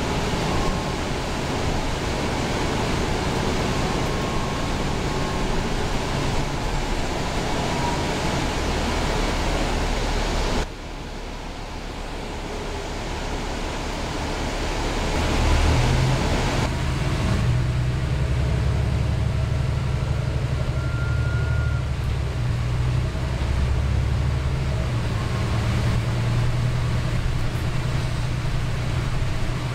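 Inside a moving New Flyer Xcelsior XD40 bus: its Cummins ISL9 diesel engine and road noise. About 11 s in the sound drops abruptly, then builds again, and from about 15 s the engine's low drone grows strong and stays steady as the bus pulls.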